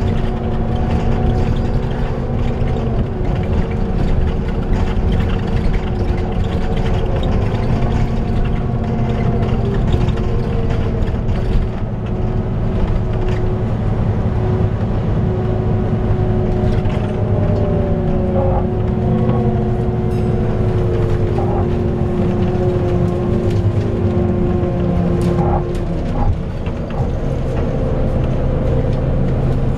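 Volvo B9TL double-decker bus's engine cooling fan whining over the drone of its six-cylinder diesel as the bus drives, heard inside the upper deck: a hoover-like whine made of several steady tones. One tone shifts slightly in pitch part-way through and another cuts out near the end.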